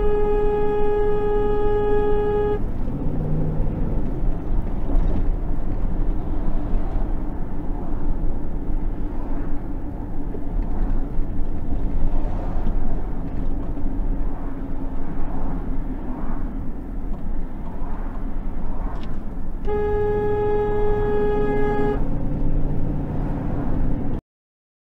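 Car horn held in a long blast of about two and a half seconds, then blown again for about two seconds near the end, over steady engine and road noise from a car in traffic.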